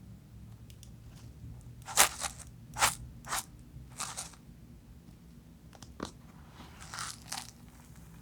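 Knife cutting through dry, crunchy soap: a series of sharp crunches. The loudest comes about two seconds in, several more follow over the next two seconds, and two more come near the end.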